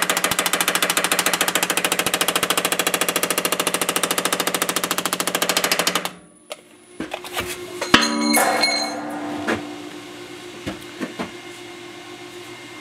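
Power hammer with shrinking dies pounding a sheet-metal panel in rapid, evenly spaced blows, shrinking the metal. It stops abruptly about six seconds in, followed by a clank with brief ringing about two seconds later.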